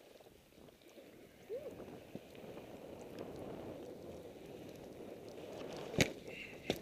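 A skier's skis and gear shuffling in deep snow: a steady low rustle that slowly grows louder, with two sharp knocks near the end.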